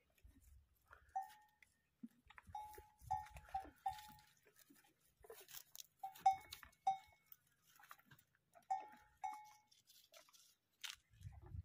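Camel crunching on a dry animal bone, with a small bell on its neck collar clinking in short clusters of rings as its head moves.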